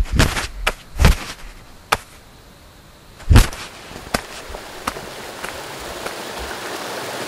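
Sharp wooden knocks of dadeumi clubs, the Korean paddles for beating cloth, about ten strikes at an uneven pace. The loudest come about a second in and just after three seconds, and the strikes grow fainter toward the end. A steady hiss of running water builds up over the second half.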